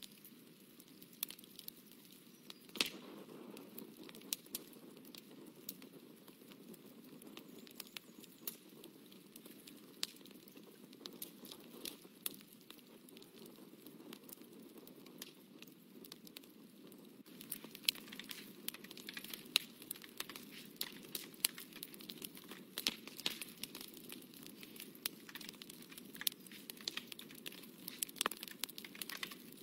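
Paper being handled and shifted on a desk: scattered small crinkles and clicks over a faint steady hum, becoming busier a little past halfway.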